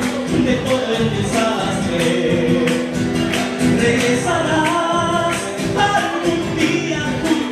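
A man singing live to his own strummed acoustic guitar, the strokes coming in a steady rhythm under the voice.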